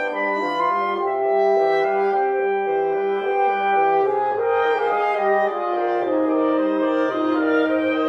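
Woodwind quintet of flute, oboe, clarinet, French horn and bassoon playing a classical chamber piece: several held notes overlap while a low line moves step by step beneath them.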